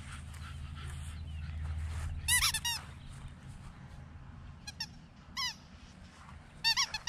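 Puppy giving short, high-pitched yips in quick runs: three or four together about two seconds in, single ones around five seconds, and a pair near the end. A low steady hum underlies the first three seconds.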